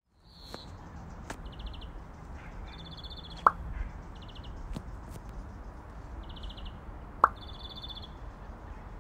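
Birds chirping in short, fast high trills that repeat every second or so, with two sharp water-drop plops, one about three and a half seconds in and one about seven seconds in, over a soft low rumble.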